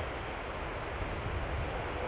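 Steady outdoor wind noise: a low, fluttering rumble on the microphone under an even hiss.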